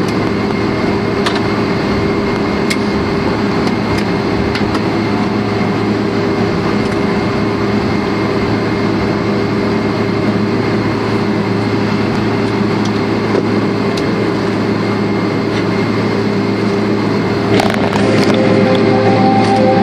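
Steady jet airliner cabin noise as the plane rolls along the ground after landing: engine and air-system hum with a low drone. Near the end a louder layer with held notes comes in, the start of cabin music.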